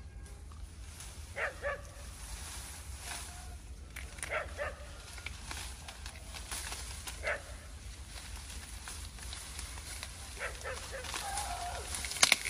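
Short animal calls at intervals of a second or two, over a steady low hum, with a sharp click near the end.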